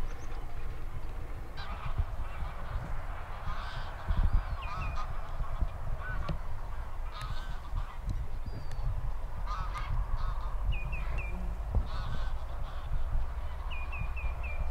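A flock of geese honking, with many short overlapping calls over a steady low rumble.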